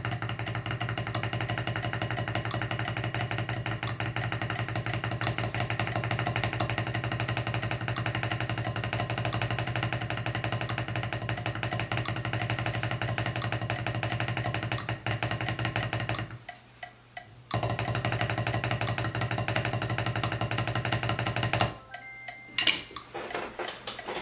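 Wooden drumsticks playing rapid, even single strokes on a rubber practice pad at 176 bpm, over a steady backing music track. The playing and music break off briefly about 16 seconds in, resume, and stop about 22 seconds in, followed by a few knocks and clatter as the sticks are set down on the pad.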